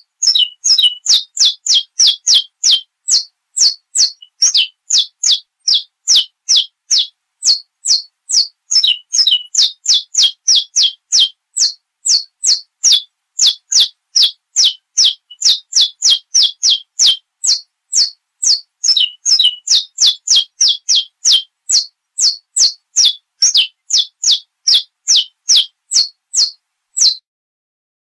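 Saffron finch (canário-da-terra) singing: a long run of sharp, high notes, each sliding quickly down in pitch, about two to three a second. It stops shortly before the end.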